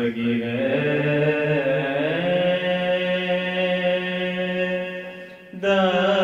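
A man's voice chanting a devotional line, holding one long note for about five seconds with a slight rise in pitch partway. It breaks off briefly near the end and a new phrase begins.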